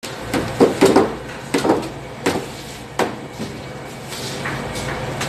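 A run of sharp knocks and clatter of kitchen utensils and plates on a steel work counter, about eight in the first three seconds, over a steady low hum.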